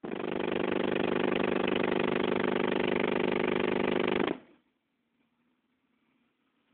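Sundown SA-8 car audio subwoofers playing a 25 Hz bass 'burp' tone, a loud steady drone that holds for about four seconds and then cuts off abruptly.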